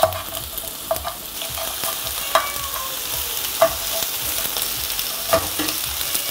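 Vegetables frying and sizzling in oil in a frying pan while a utensil chops and stirs them, knocking sharply against the pan a few times at uneven intervals.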